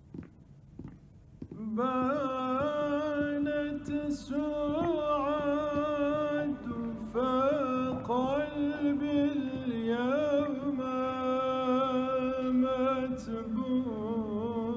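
A few faint footsteps, then from about two seconds in a solo voice sings a slow melody with wavering, ornamented pitch bends as soundtrack music.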